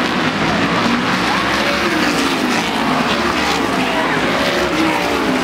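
Several stock car racing engines running hard on a short oval, their pitches sliding up and down as the cars pass.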